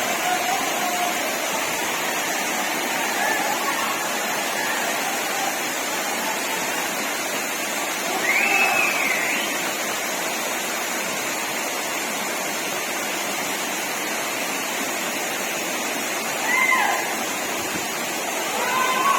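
Waterfall rushing in a steady, even roar of falling water. Two short rising-and-falling calls stand out over it, about 8 seconds in and again near the end.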